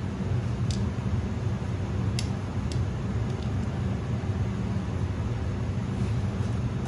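Steady low hum of kitchen ventilation machinery, with a few faint light clicks.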